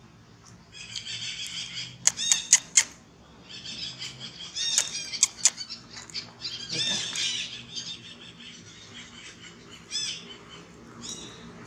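Birds chirping in short bursts of quick, repeated high notes, coming and going several times. A few sharp clicks sound about two seconds in and again around five seconds, the loudest things heard.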